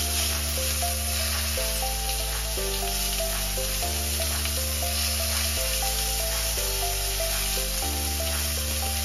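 Ribeye steaks sizzling as they fry in a hot pan, a steady hiss under background music whose chords change every second or two.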